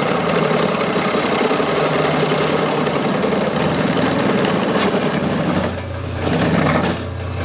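Metalworking machinery running in a shop, a loud steady buzz that gives way to a lower steady hum about six seconds in.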